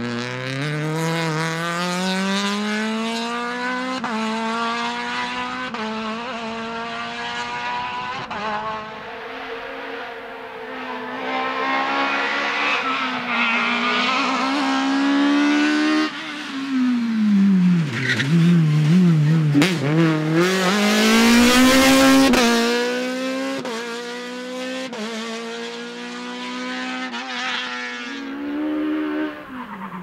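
Peugeot 306 Maxi Kitcar rally car's high-revving 2.0-litre four-cylinder engine at full throttle, climbing in pitch through a series of quick upshifts. About two-thirds of the way through it drops and warbles through downshifts under braking, then revs hard again to its loudest.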